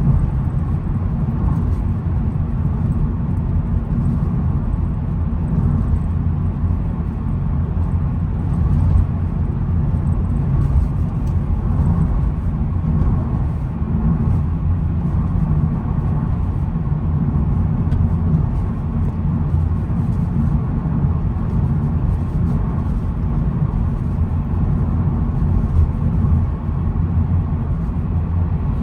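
2022 SEAT Ibiza FR on the move: a steady, low engine and road rumble that stays even throughout.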